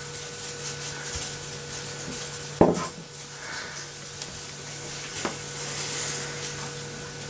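Wooden rolling pin rolling pie pastry on a floured wooden table: soft rubbing and rustling, with one sharp knock about two and a half seconds in and a lighter knock a few seconds later. A steady low hum runs underneath.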